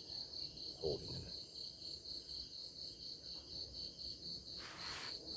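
Crickets chirping in a steady pulsing trill, about four pulses a second. A brief low sound comes about a second in, and a short rustle comes near the end.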